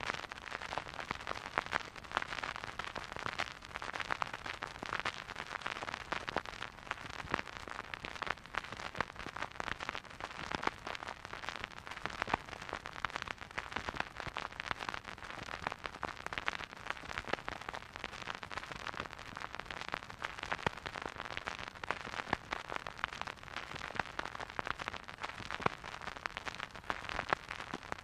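Vinyl record surface noise from a turntable stylus riding the groove: a steady soft hiss with dense, irregular crackles and pops.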